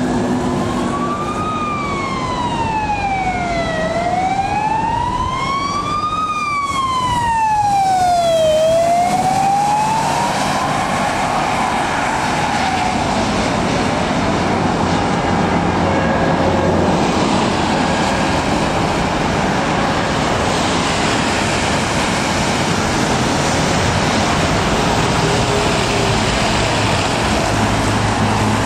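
Fire engine siren wailing, sweeping slowly up and down about every four and a half seconds, then fading out about halfway through. Passing road traffic and engines follow, with tyres hissing on a wet road.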